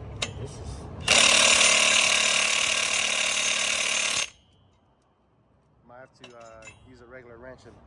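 Cordless impact wrench hammering a nut on a rock crawler's wheel-spacer hub in one continuous run of about three seconds. It starts about a second in and cuts off sharply. The work is the fix for a loose wheel spacer.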